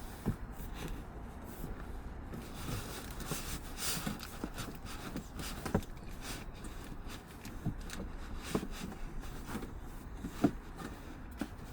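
Scattered knocks, clicks and scrapes of a boxed diesel heater and its packaging being handled and pulled out of the box, with a few sharper knocks near the end.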